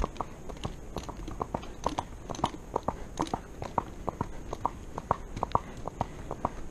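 Horse's hooves clip-clopping on an asphalt road, a steady run of sharp hoof strikes several times a second.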